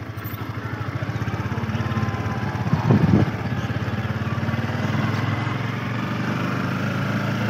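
Motorcycle engine running as the bike pulls away and rides along, a rapid, steady firing pulse that grows a little louder over the first couple of seconds. A brief louder sound comes about three seconds in.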